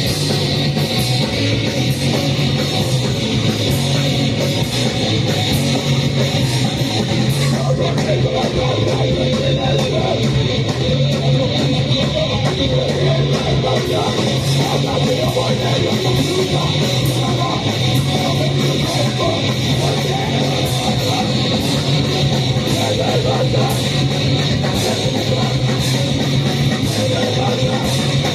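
Live band playing loud, distorted heavy music: a dense wall of electric guitar with fast hits throughout, without a break.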